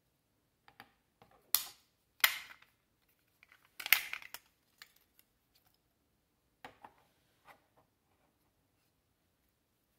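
Handling clicks and clacks from a selfie stick tripod's plastic parts and metal telescoping pole, as the small remote shutter is set down and the pole is pulled out. Three loud sharp clacks in the first half, then a few fainter clicks.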